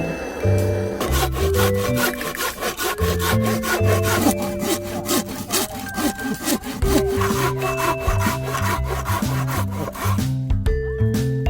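Background music with a steady bass line, over a fast, rasping scraping of rough strokes that starts about a second in and stops near the end.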